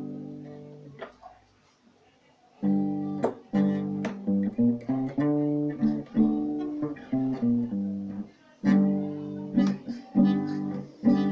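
Cutaway acoustic guitar: a chord rings and fades away, and after a short pause a run of single picked notes follows, lead lines from the minor pentatonic scale.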